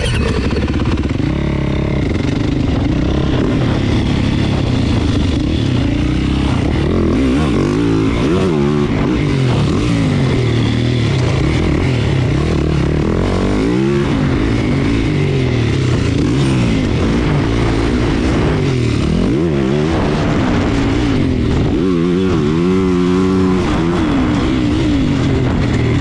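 Yamaha 450 four-stroke motocross bike's single-cylinder engine running hard under the rider, revving up and dropping back again and again as the throttle opens and closes and the gears change.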